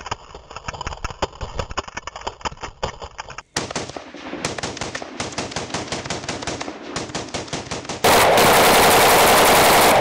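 Steyr AUG A3 CQC bullpup rifle firing long fully automatic bursts of rapid shots with short breaks between them. From about eight seconds in, the fire is much louder and distorted.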